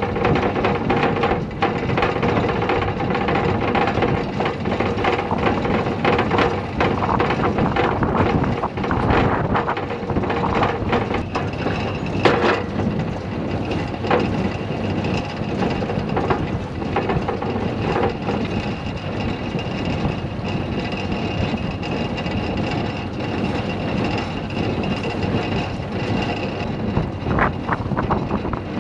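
Tractor and big square hay baler running steadily in the field, with a sharp knock about twelve seconds in.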